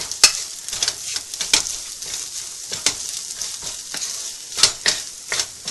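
Potato and paneer stuffing sizzling in oil in a non-stick pan while a wooden spatula stirs and mashes it, with several sharp knocks of the spatula against the pan.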